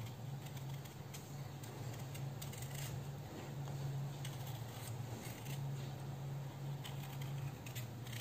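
Small knife peeling a red-skinned potato by hand: short, irregular scraping cuts as strips of skin come away. A steady low hum runs underneath.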